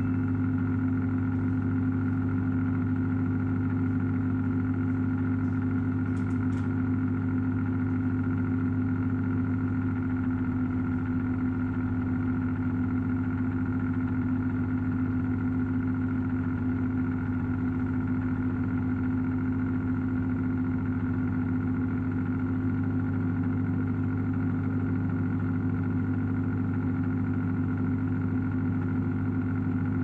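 Microwave oven running: a steady low electrical hum from the transformer and magnetron, mixed with the cooling fan and turntable motor. A few faint ticks come about six seconds in.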